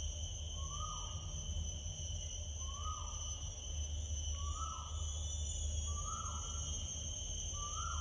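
Natural outdoor ambience: a steady high-pitched insect drone, with a short falling animal call repeated about every one and a half to two seconds, five times, over a low rumble.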